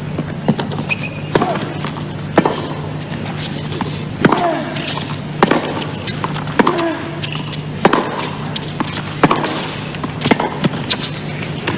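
Tennis ball being hit back and forth in a long baseline rally, a sharp racket strike about every second, over a steady low hum.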